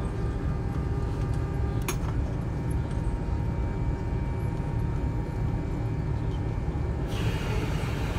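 Cabin noise of a McDonnell Douglas MD-88 taxiing: a steady low rumble from its rear-mounted Pratt & Whitney JT8D engines and the rolling airframe. There is a brief click about two seconds in, and a hiss joins the rumble about seven seconds in.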